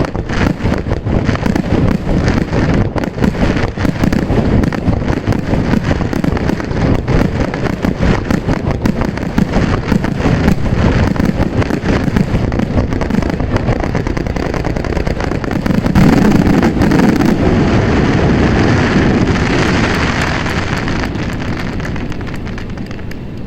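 Aerial fireworks bursting in a dense, rapid barrage, loudest about two-thirds of the way through, then trailing off into a fading hiss near the end.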